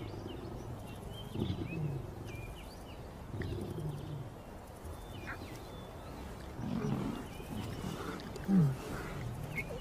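Lions giving short, low moaning growls every couple of seconds, each falling in pitch, the loudest near the end.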